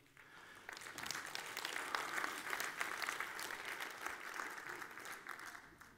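Audience applauding: a spread of many hands clapping that builds up about half a second in and dies away near the end.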